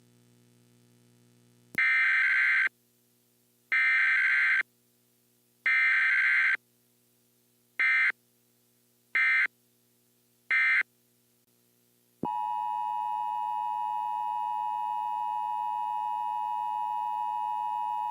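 Emergency Alert System tones: three long bursts of buzzing digital data, then three short ones, each about a second or two apart. About twelve seconds in, the steady two-tone EAS attention signal starts and holds.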